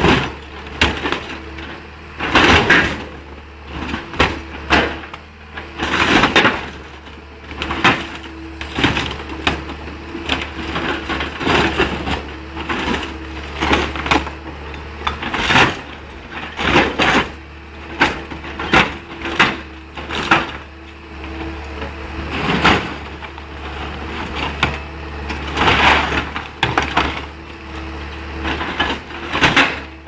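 Hydraulic orange-peel grapple crushing and tearing a car's body: irregular crunches of bending sheet metal and breaking glass every second or two, over the steady drone of the machine's engine.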